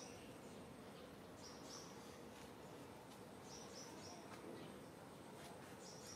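Near silence with faint, high bird chirps: short notes in twos and threes every couple of seconds over a low steady background hiss.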